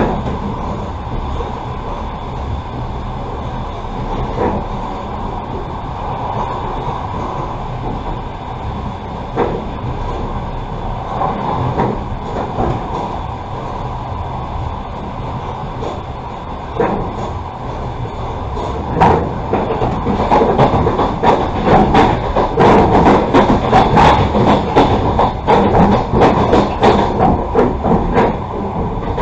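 Passenger train running along the track: a steady rumble of the carriage with an occasional single knock. About two-thirds of the way in, a dense run of wheel clacks and knocks starts and the sound grows louder.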